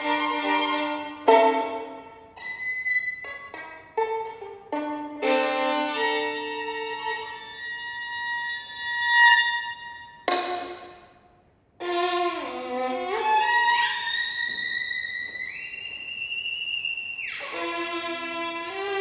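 Violin playing: short separated notes and held notes, a brief break about two-thirds through, then sliding notes that climb in steps before a fuller passage near the end.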